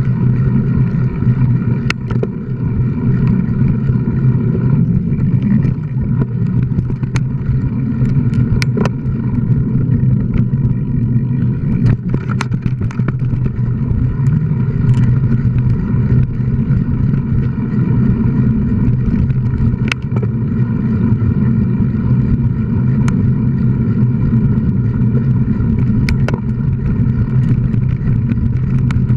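Mountain bike ridden fast along a dirt trail: a steady rumble of tyre noise and wind on the microphone, with scattered sharp knocks and rattles as it goes over bumps.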